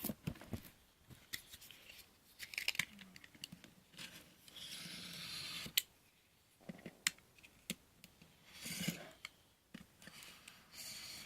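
Packaging being handled and opened by hand: scattered clicks and knocks, with stretches of scraping and cutting noise, the longest lasting about a second and a half a little before the middle.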